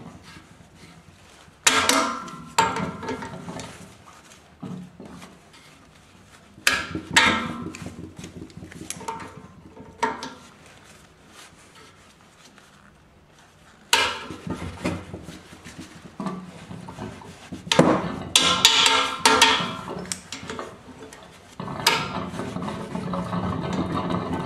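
Locking grip pliers clanking and scraping on a cut brass ring in a cast-iron radiator's pipe connection as it is worked loose: clusters of sharp metallic clinks and rattles with quieter gaps between. Near the end a steady rushing noise comes in, which the owner puts down to the rest of the house's heating system bleeding down.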